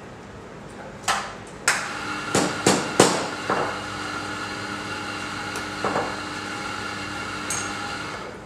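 Espresso-making at the machine: a run of sharp metal knocks as the portafilter is knocked and tapped, then a steady motor sound with a whine for about six seconds that stops near the end.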